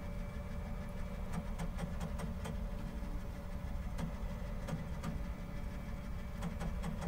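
Tiertime UP 3D printer running as it starts laying down the base of a print: a steady fan and motor hum with scattered light clicks.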